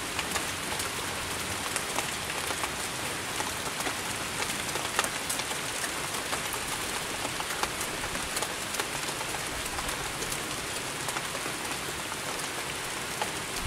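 Steady rain falling, with a constant hiss and many individual drops ticking sharply close to the microphone.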